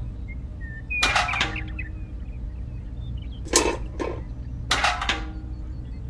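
Small tin pails set down one after another on a toy trailer's bed: light knocks with a brief ring about a second in, then two or three more between about three and a half and five seconds in.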